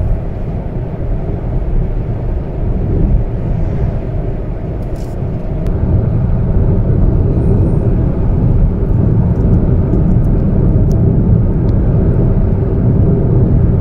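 Steady road and engine rumble of a car driving at highway speed, heard from inside the cabin. It gets a little louder about six seconds in.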